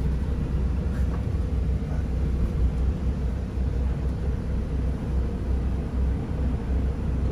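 Freightliner semi-truck's diesel engine running, a steady low rumble heard from inside the cab.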